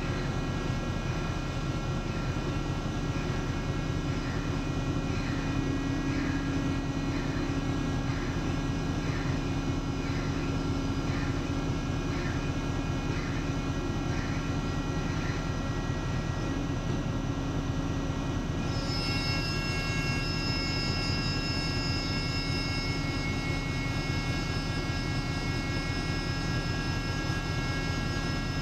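Offshore crane's engine and hydraulics running with a steady drone, heard inside the operator's cab; a higher whine joins about two-thirds of the way through.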